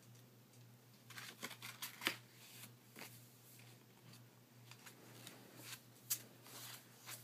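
A toddler handling and flipping the pages of a small book: soft papery rustles and light clicks, a cluster of them from about one to three seconds in and a sharper one near six seconds.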